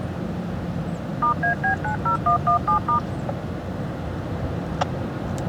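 A quick string of about nine touch-tone (DTMF) beeps, each a two-note chord, about five a second, over a steady low rumble. A single sharp click comes near the end.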